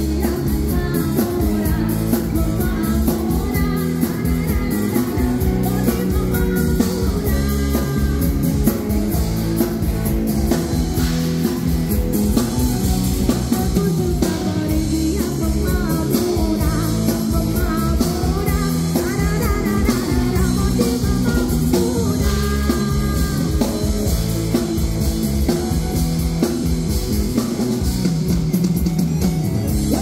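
A live band playing a song: a woman singing lead into a microphone over electric guitar, keyboard and drum kit, loud and steady through the stage sound system.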